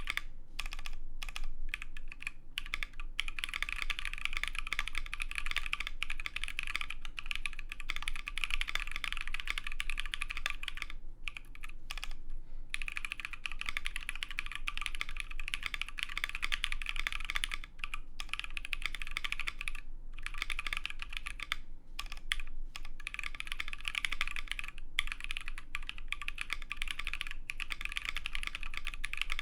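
Continuous fast typing on a custom 60% mechanical keyboard with lubed Naevy tactile switches, PBT keycaps, an FR4 plate and an O-ring mount: a steady stream of keystrokes with a brief pause about a third of the way through.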